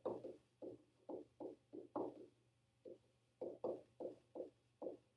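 Pen stylus tapping and stroking on a tablet while handwriting: a string of faint, irregular ticks, about three a second.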